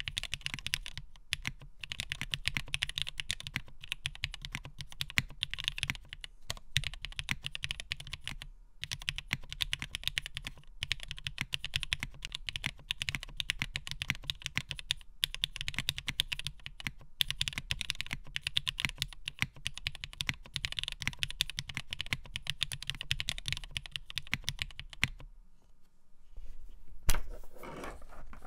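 Fast, continuous typing on a custom mechanical keyboard with an aluminium plate in a top-mount case, fitted with lubed frankenswitches (Cherry housing tops, NK Cream stems, Gateron Oil King bottoms): a steady stream of key clacks and bottom-outs. The typing stops about 25 seconds in, and a single loud knock follows a couple of seconds later.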